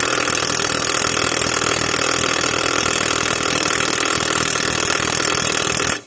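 Power tool running steadily at full speed, driving the lawnmower blade's mounting bolt tight. It cuts off abruptly near the end.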